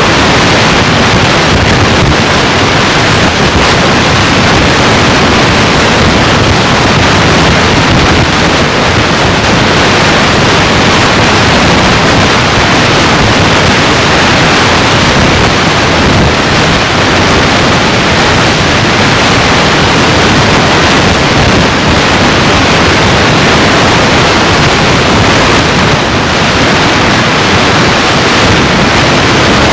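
Loud, steady hiss of static with no speech and no tones. It holds an even level, with no rhythm or events.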